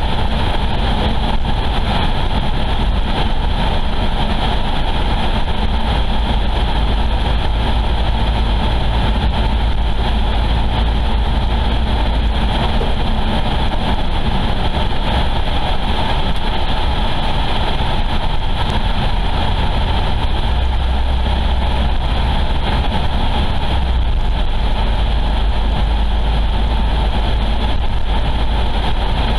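Steady road noise and engine hum of a car driving at a constant pace, a continuous low rumble with no changes.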